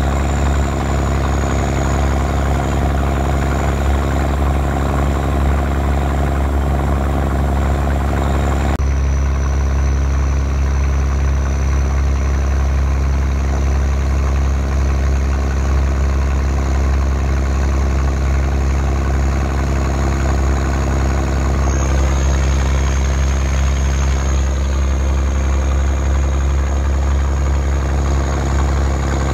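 Heavy military truck engine of an M35A2 deuce-and-a-half, the turbocharged multifuel inline-six, running steadily under load as the truck pushes through deep floodwater. It is heard from inside the cab as a loud, deep drone with a thin high whine above it.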